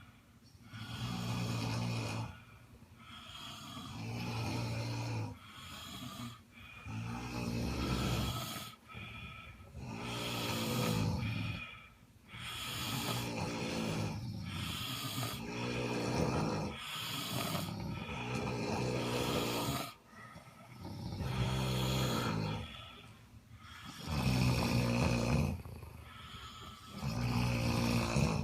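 A sleeping person snoring, a low buzzing snore on each breath, repeating about every two seconds with short gaps between.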